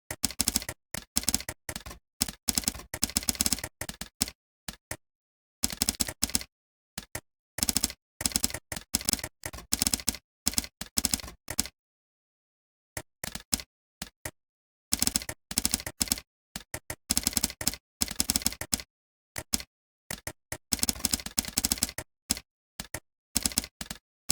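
Typing on a computer keyboard: rapid runs of keystrokes in bursts of a few seconds, broken by short pauses.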